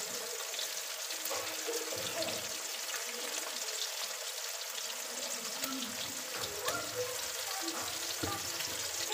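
Fish pieces sizzling in hot oil in a steel kadhai, a steady hiss with scattered small crackles and pops.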